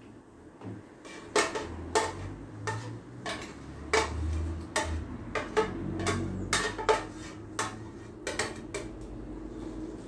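A plastic blender jar clattering and knocking against a plastic jug, a dozen or more sharp irregular knocks, as thick blended pumpkin is poured and shaken out of it.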